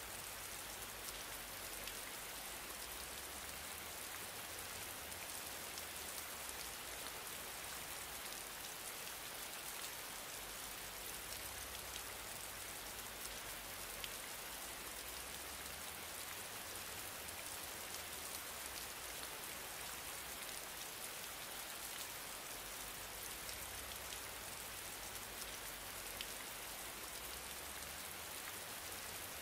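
Steady hiss with faint scattered crackles, unchanging throughout.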